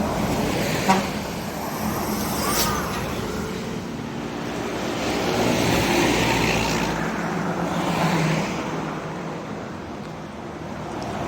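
Road traffic going past, engine and tyre noise swelling and fading as vehicles pass, loudest about six and eight seconds in. A single sharp click about a second in.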